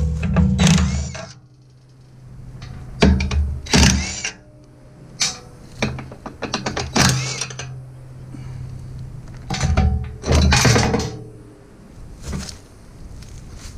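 Cordless DeWalt 20V MAX impact wrench rattling nuts off bolts in several short bursts, about four of them, with pauses between as it is moved from one nut to the next.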